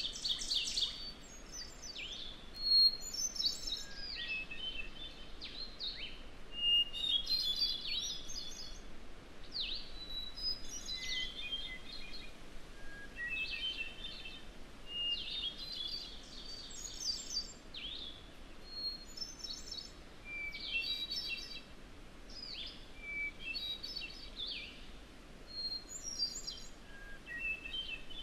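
Hermit thrush singing: flute-like phrases repeated every couple of seconds, each a held opening note followed by a quick rippling flourish, each phrase pitched differently from the last, over a faint steady background hiss.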